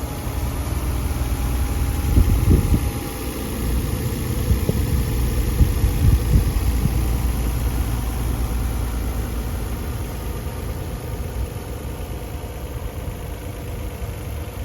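The 1992 Nissan 300ZX's naturally aspirated 3.0-litre V6 idling steadily, with a couple of brief louder moments about two and six seconds in.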